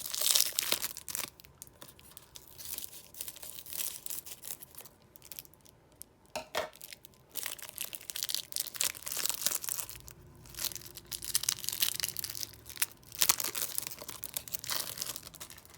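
Trading-card pack wrapper being opened by hand: irregular tearing and crinkling of the wrapper in short bursts, loudest at the start and around two-thirds of the way through.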